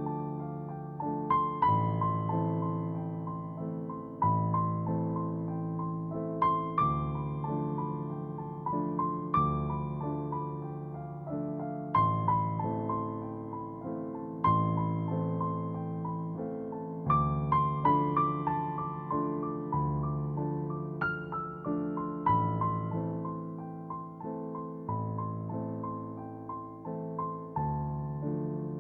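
Gentle background piano music, slow struck notes and chords each left to ring and fade.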